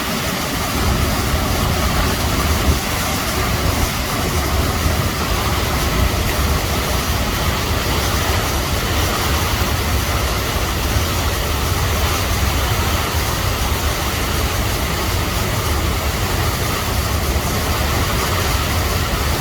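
A river swollen to flood level, rushing steadily: a loud, even roar of water with a deep rumble underneath.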